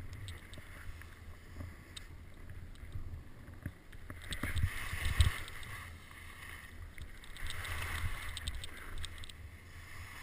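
Skis or board hissing and scraping over snow on a downhill run, with wind rumbling on the head-mounted microphone. The sound swells into louder swishes about four to five seconds in, with the loudest around five seconds, and again around eight seconds, as the rider turns.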